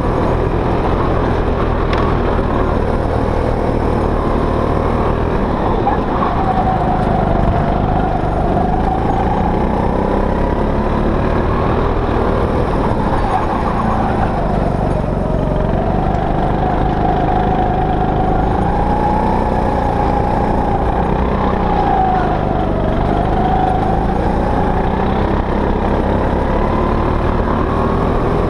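Go-kart engine running hard, heard from the driver's seat. Its high note rises and dips as the kart slows for corners and speeds up again, over a steady low rumble.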